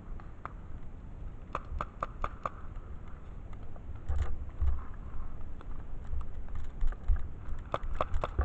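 Footsteps through dry leaf litter and twigs: quick runs of crackling clicks, about five a second, over low thumps of handling on the microphone.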